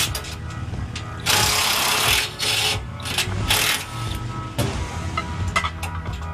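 Short bursts of a tool driving bolts into the RV step's mounting brackets, three main bursts in the first four seconds, over steady background music.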